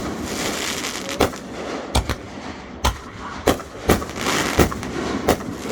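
Fireworks going off: a string of about seven sharp bangs, roughly every half second to a second, with a hissing crackle between them.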